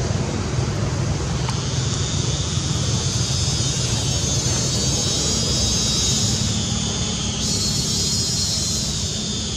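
Forest ambience: a steady high-pitched drone of insects, shifting in pitch about seven seconds in, over a low steady rumble.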